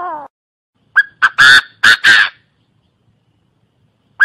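Chinese francolin calling: one harsh five-note phrase, two short notes then three longer ones, about a second in, after the tail of a falling note at the start.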